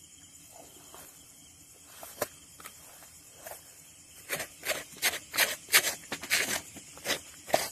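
Hands plucking and rubbing hair off a wet goat's skin on a woven sack, giving short rasping strokes. They are sparse at first, then come in a quick run from about four seconds in.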